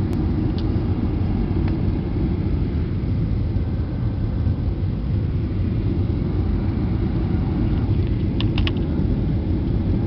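Steady rumble of an airliner's engines and airflow, heard from inside the passenger cabin in flight. A few short clicks come together about eight seconds in.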